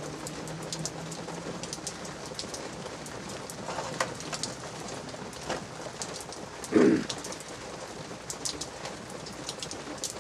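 Light drizzle pattering, with many scattered sharp drip ticks, and one brief louder sound about seven seconds in.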